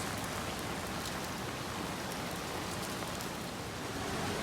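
Heavy rain falling steadily on hard surfaces, an even hiss with scattered sharp drop ticks.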